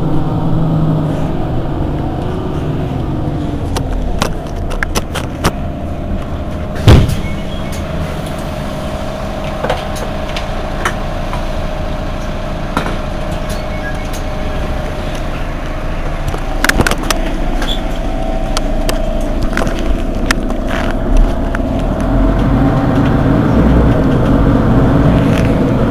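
Mercedes-Benz Citaro G C2 articulated bus idling while stopped: a steady engine rumble with a faint steady tone above it. Several sharp knocks and clicks come through, the loudest about seven seconds in, and the rumble grows a little louder near the end.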